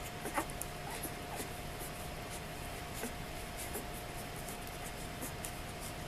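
Newborn Presa Canario puppies suckling at their mother: faint, scattered soft clicks and smacks over a steady hiss and a faint steady hum.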